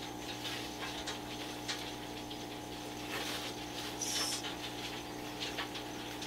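Soft rustling of a silk veil being pulled from a box and unfolded, over a steady electrical hum. There is a brief hiss about four seconds in.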